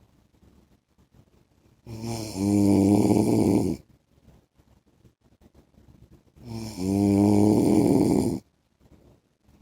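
A man snoring in his sleep: two loud snores, each about two seconds long and about four and a half seconds apart, with quiet between them.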